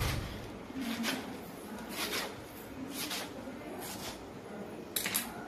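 Kitchen knife cutting through a bundle of Malabar spinach (poi) leaves onto a wooden chopping board, a cut about once a second, the last two close together near the end.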